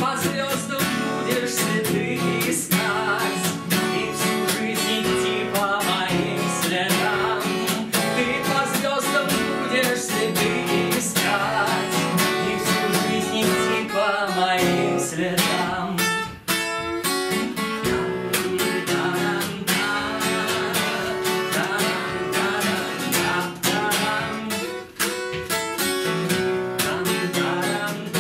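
Steel-string acoustic guitar strummed in a steady rhythm, with a man singing over it.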